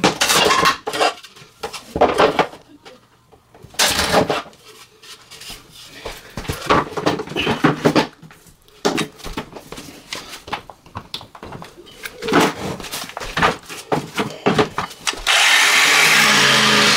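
Laminate flooring boards being handled, with irregular wooden knocks and rubbing. About fifteen seconds in, an electric power tool starts up and runs steadily to cut the laminate.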